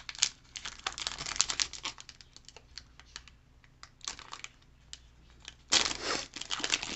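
Foil Pokémon booster pack wrapper crinkling and crackling in the hands as it is torn open, with a louder burst of crinkling near the end.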